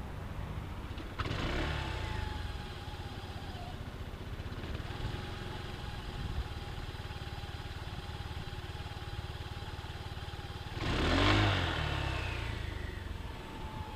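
Engine idling with two brief rev-ups, about a second in and near the end. Each brings a whistle from the CVT variator that slowly falls in pitch as the revs drop back.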